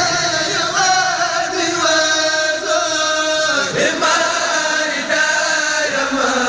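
Arabic religious poem (a Mouride khassida) chanted in long, held, wavering notes, with brief breaks for breath about three and a half and six seconds in.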